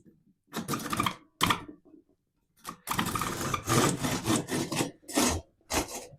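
Hand saw cutting a stick of kindling: a couple of short strokes, then a longer run of strokes in the middle.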